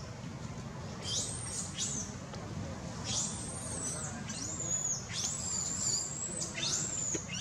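Baby monkey giving about six high-pitched squealing calls in a row, each sweeping sharply up, held high, then dropping away, starting about a second in.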